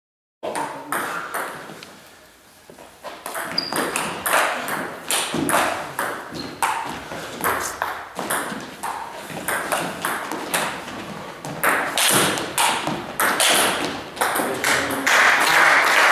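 Celluloid-style table tennis ball being hit back and forth in a rally, a string of sharp clicks as it strikes the rubber bats and bounces on the table. Near the end, clapping sets in.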